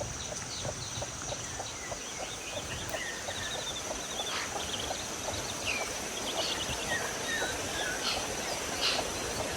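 Small birds chirping and twittering in quick, scattered calls, over a steady high thin tone.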